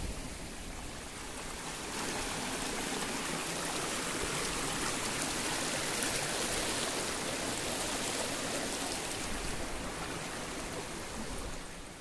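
A shallow mountain stream rushing over rocks in a steady wash of water. It grows louder about two seconds in and fades out at the end.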